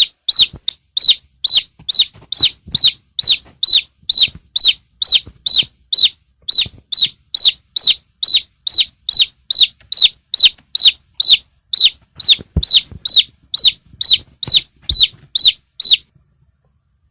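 A domestic chick peeping: short, high, shrill peeps repeated evenly, about two to three a second, stopping abruptly about sixteen seconds in.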